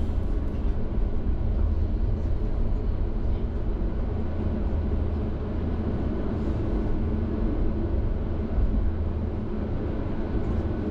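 Tram running on its rails: a steady low rumble from the wheels and running gear, with a faint steady whine above it.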